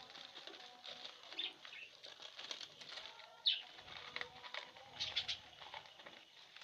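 Fischer's and masked lovebirds giving short, high chirping calls, the loudest a sharp chirp about halfway through, with brief wing flutters and the rustle of dry corn husks they are pulling at for nest material.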